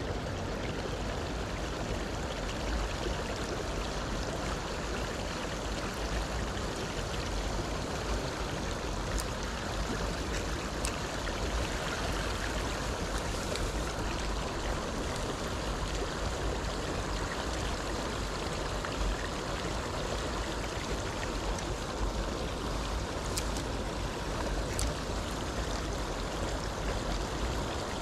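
Small stream flowing steadily, with water spilling over a low concrete weir into the pool.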